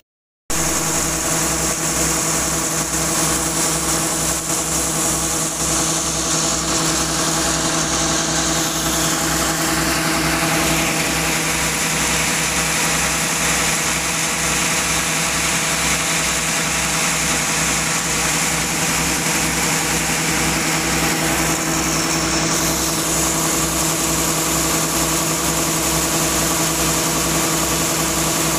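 Combine harvester's engine running steadily at working speed while its unloading auger pours shelled corn kernels into a truck bed, with an even hiss over the engine.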